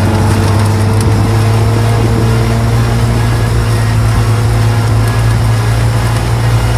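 Off-road vehicle's engine running at a steady, constant speed under way, a loud even drone with no change in pitch.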